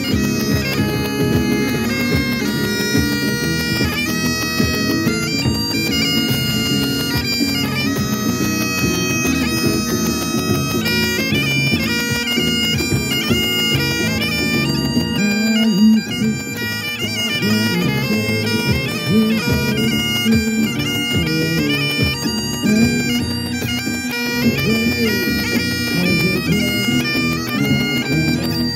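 Highland bagpipes playing a tune: steady drones under a chanter melody of quickly changing notes, with a brief dip in loudness about halfway through.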